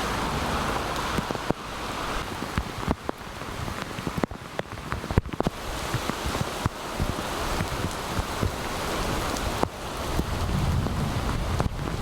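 Heavy rain with wind buffeting the microphone, broken by many sharp irregular taps, and a low rumble of wind near the end.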